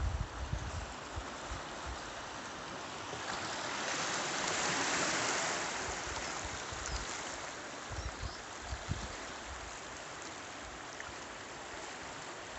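Sea surf washing over a pebble beach: a steady hiss of water that swells into a louder wash a few seconds in, then eases back, with a few brief low thumps.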